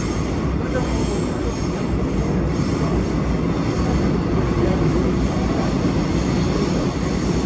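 Seoul Subway Line 3 electric train running through a tunnel, heard inside the passenger car: a steady rumble of wheels on rails and running noise, with a faint high whine above it.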